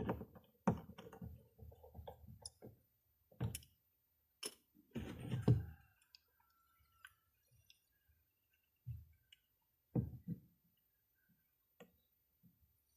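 Irregular clicks and light knocks of small objects being handled on a hard surface. They come in a busy cluster for about the first six seconds, then a few scattered knocks near ten seconds in.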